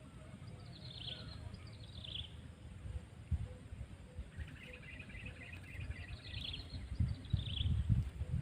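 Birds calling: two short high chirps falling in pitch, a rapid run of notes midway, then two more falling chirps near the end, over an uneven low rumble.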